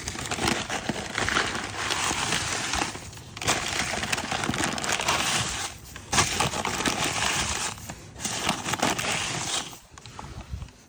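Rough crinkling and scrubbing in four long stretches with short pauses: spilled motor oil being wiped up.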